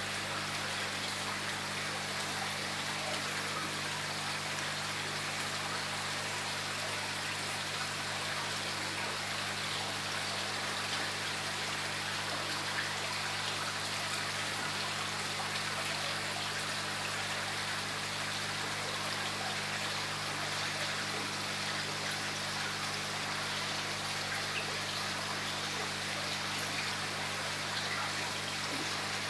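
Steady running and trickling water in a koi pond, with a low steady hum underneath.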